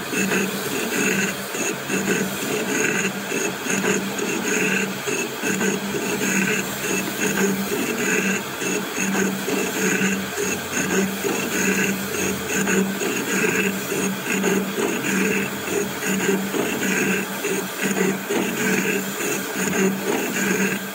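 Jig boring machine running with its boring bar cutting the seat bore of a cast-steel valve body: a steady mechanical whir with a regular pulsing.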